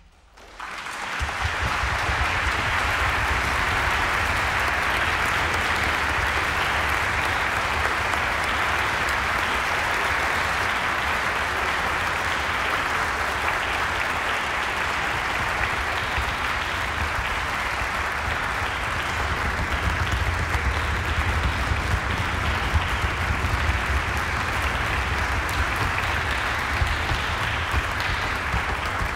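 Concert audience applauding. It breaks out suddenly about half a second in and goes on steadily.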